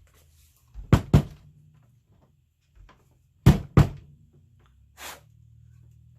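Sharp hard knocks in two quick pairs, about two and a half seconds apart, then a single fainter one near the end: crafting tools and supplies being handled and set down on a table.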